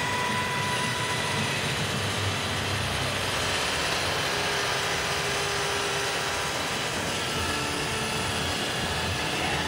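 iRobot Roomba robot vacuum running and cleaning: a steady whir from its vacuum motor and brushes, with faint steady whining tones over it.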